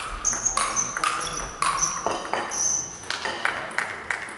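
Table tennis rally: the ball is struck by rackets and bounces on the table, each contact a sharp click with a high ringing ping that echoes in a large hall. After about two seconds the hits give way to a run of quicker, lighter clicks as the rally ends.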